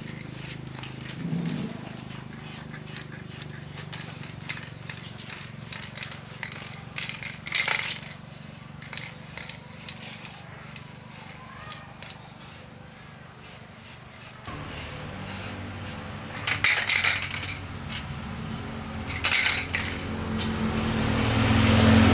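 Paint being sprayed in many short hissing bursts, with a few longer bursts, over a steady low hum. A louder rumble builds near the end.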